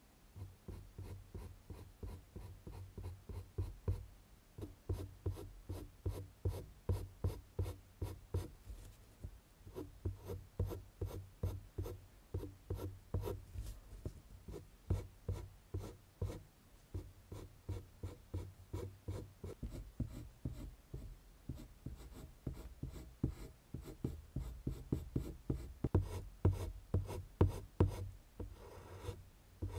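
Prismacolor colored pencil scratching on drawing paper in quick, short, repeated shading strokes, several a second, getting a little louder near the end.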